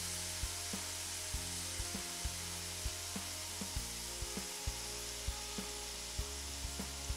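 Seasoned salmon fillets sizzling steadily in hot oil in a nonstick frying pan, under background music with low held notes and a steady beat.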